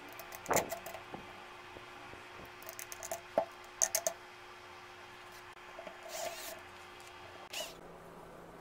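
Scattered light clicks and taps of small metal parts: a screwdriver or hex key and the end plate of an old DC motor housing being handled, with the sharpest clicks a little past the middle.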